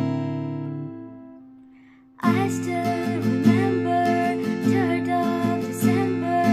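Acoustic guitar strummed: a chord rings out and fades away over about two seconds, then the strumming starts again abruptly and carries on in a steady rhythm.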